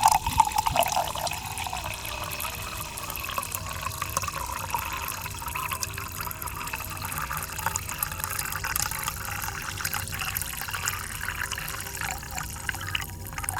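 Carbonated soda poured into a glass: a splash as the pour starts, then steady fizzing with a dense crackle of bursting bubbles.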